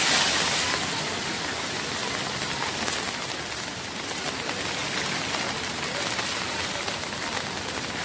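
Heavy rain pouring down, a dense steady hiss, a little louder in the first second.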